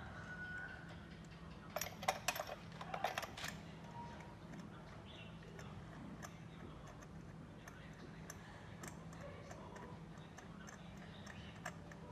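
Metal hand tools clinking against each other, with a short burst of clatter about two seconds in and scattered light ticks after it, over a faint steady hum. This is the work of refitting the cleaned spark plugs.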